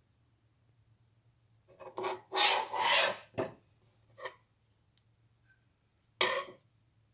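Metal being rubbed by hand with a file or abrasive: a cluster of short rasping strokes about two seconds in, a brief one after, and a last stroke near the end, over a faint steady low hum.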